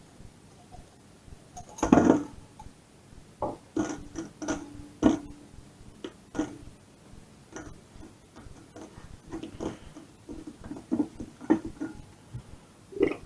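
A series of short knocks and clinks from kitchen containers and utensils being handled, with one louder thump about two seconds in.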